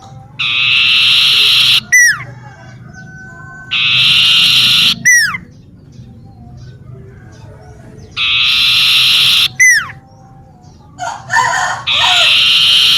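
Common iora (burung cipoh) calling: a buzzy trill about a second long followed by a short, downward-sliding whistle, the phrase repeated four times about every four seconds. Softer chirps come in just before the last phrase.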